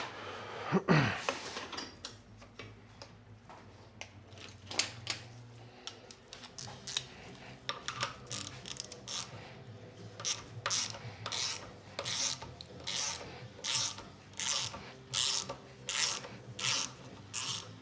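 Ratchet wrench worked back and forth in repeated strokes, about one and a half a second, each stroke a short burst of ratchet clicking. A louder sliding scrape comes about a second in.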